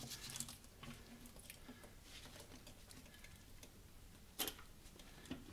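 Faint scattered ticks and light scraping as a rusty rear differential cover is worked loose by hand and tool, with one sharp click about four seconds in.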